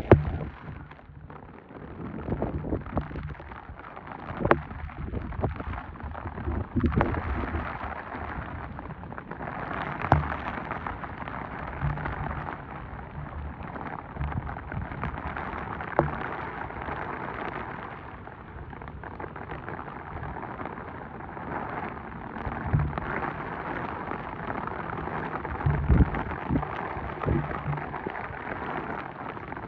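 Steady heavy rain falling on floodwater, an even hiss with occasional low thumps and a few sharp ticks.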